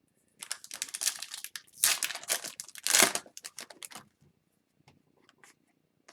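Foil wrapper of a hockey card pack being torn open and crinkled for about three and a half seconds, then a few light clicks and rustles of cards being handled.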